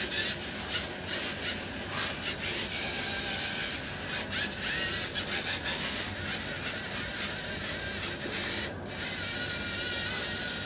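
The LEGO NXT line-following robot's drive motors and gears whirring as it drives. The whir cuts in and out irregularly as it steers along the line, then settles into a steadier whine near the end.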